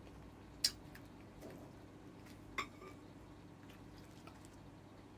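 Faint eating sounds during a meal of dried fish and squid: two sharp clicks about two seconds apart, with fainter small ticks and handling noises between.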